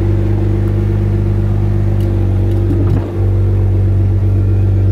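2009 BMW 335i E93's retractable hardtop opening under power: a steady loud mechanical hum, with a short dip and change about three seconds in as the roof moves through its stages. The top running shows the new replacement convertible-top switch works.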